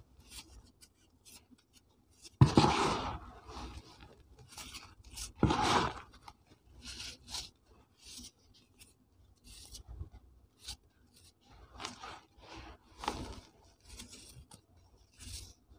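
Fingers digging into and crumbling dry, dyed powder in a tub: soft scraping and crunching, with two louder crunches about two and a half and five and a half seconds in, then smaller crackles.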